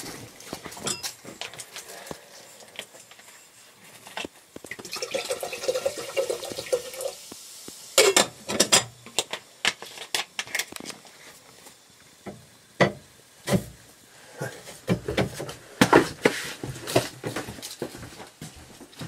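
Handling noises at a wood-burning cookstove: a steady rushing, pouring sound for about two and a half seconds, then a run of sharp knocks and metal clatters.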